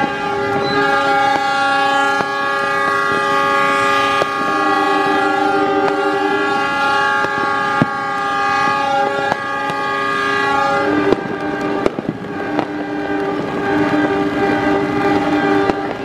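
Several diesel locomotive air horns sounding at once, held in a long overlapping chord. From about two-thirds of the way in, sharp pops and cracks join the horns.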